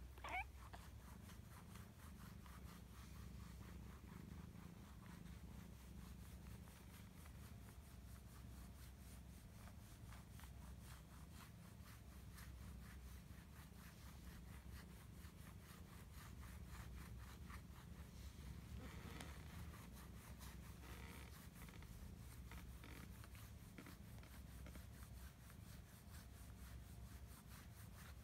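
Domestic cat purring steadily and softly as a wire massage roller rubs over its fur, with a short rising squeak right at the start.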